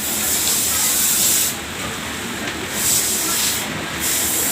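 Steady background hiss. Its upper part drops away briefly twice, and there are one or two faint clicks.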